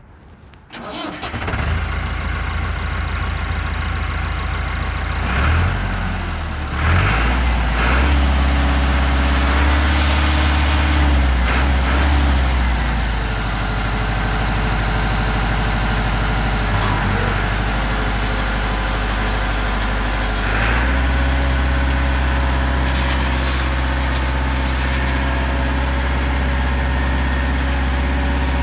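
Massey Ferguson 274 four-wheel-drive diesel tractor engine running with a deep, steady drone. It is revved higher for several seconds about a quarter of the way in, drops back, then picks up again and holds as the tractor drives off.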